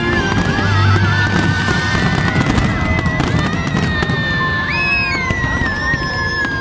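Aerial fireworks bursting and crackling, thickest in the middle, over music with a wavering high melody.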